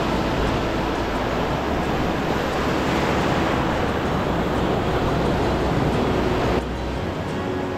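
Waves and surf washing, with wind rumbling on the microphone; the noise drops suddenly a little over six seconds in.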